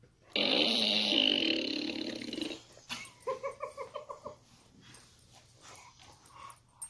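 Minions toy fart gun playing its recorded fart sound, a loud rasping blast lasting about two seconds, followed about a second later by a quick run of short pitched pulses.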